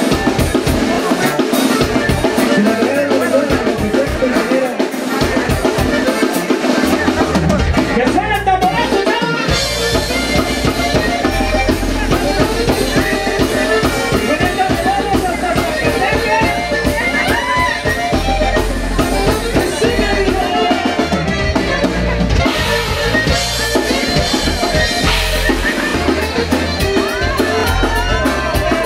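Live norteño band music: button accordion and saxophone over electric guitar, bass guitar and a drum kit. The deep bass line comes in about eight or nine seconds in.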